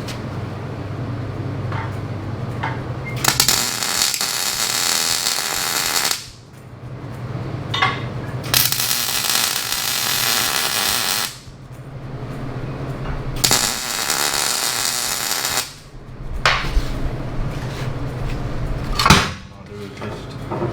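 Three loud bursts of hissing shop noise, each lasting two to three seconds, with a low hum and light metal knocks in the gaps between them.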